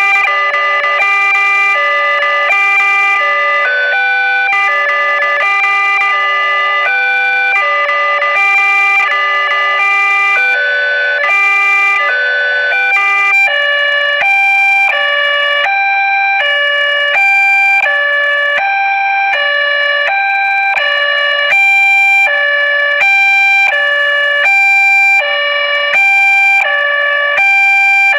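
Electronic siren sounding loudly in stepped tones that jump between fixed pitches rather than gliding. It starts in a multi-note pattern, and about 13 seconds in switches to a steady two-tone hi-lo alternation, each tone lasting under a second.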